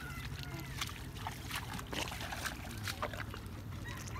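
Feet wading and squelching through shallow muddy water, with scattered small splashes, over a steady low hum.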